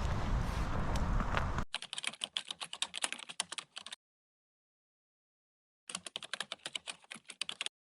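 A steady outdoor hiss with a few pops, cut off abruptly about a second and a half in; then quick bursts of keyboard-typing clicks, with dead silence between the bursts.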